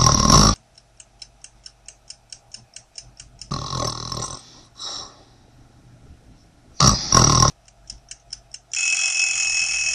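A person snoring loudly, three long snores a few seconds apart, over a clock ticking rapidly at about five ticks a second. Near the end an alarm bell rings for about a second.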